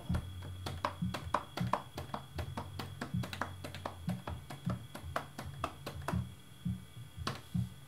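Drum multitrack playing back through a digital mixer with only the hi-hat and overhead mics open: hi-hat ticks about four a second over low-end rumble picked up by the overhead mics. The low end thins a little under three seconds in as 90 Hz high-pass filters are switched in on the channels.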